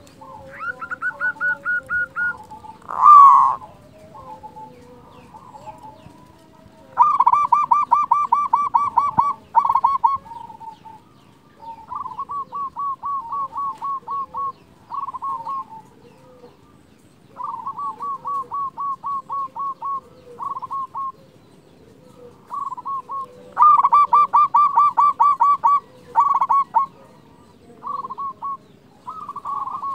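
Zebra doves calling: repeated runs of rapid staccato cooing notes, each run lasting a second or few, some loud and close, others fainter. A single loud rising cry about three seconds in.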